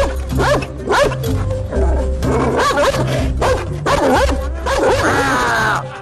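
A dog barking again and again in short yelps, over background music with a steady bass line.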